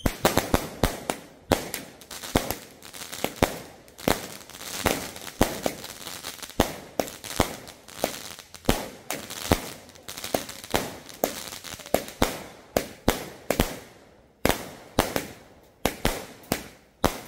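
Multi-shot firework cake firing aerial shots in quick succession: a string of sharp bangs, about two to three a second, irregularly spaced.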